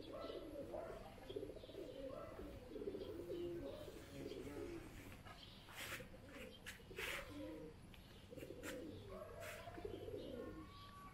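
Doves cooing in repeated low, rolling phrases, with a few brief sharper sounds near the middle.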